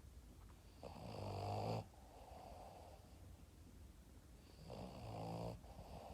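Boston terrier snoring in its sleep: two buzzing snores about four seconds apart, each growing louder and then cutting off sharply, with softer breathing between them.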